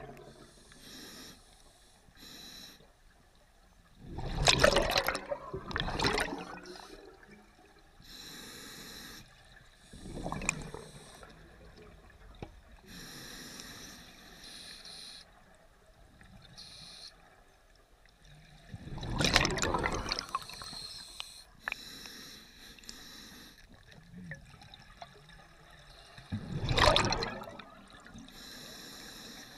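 Scuba diver breathing through a regulator underwater: quieter hissing breaths in, broken several times by loud bursts of exhaled bubbles.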